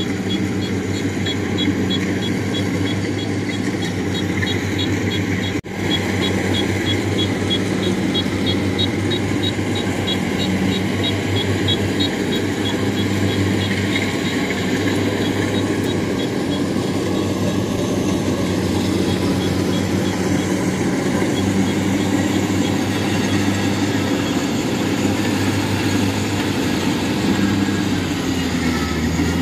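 Kubota DC-70 Plus combine harvesters' diesel engines running steadily with a deep hum while the machines cut waterlogged rice. A fast, high, even ticking of about four a second runs through roughly the first twelve seconds, and the sound breaks off for a split second about six seconds in.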